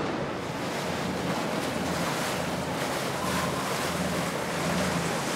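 Wind buffeting the microphone over the wash of river water, with the low steady drone of a motor yacht's engines underneath.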